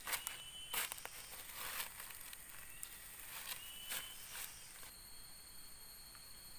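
Footsteps crunching on dry leaf litter: a handful of sharp crackling steps, spaced about a second apart, in the first four and a half seconds. About five seconds in, a steady high-pitched whine comes in and holds.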